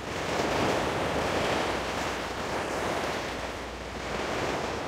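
Sea surf washing against breakwater rocks: a steady rush of water that swells and eases, mixed with wind on the microphone.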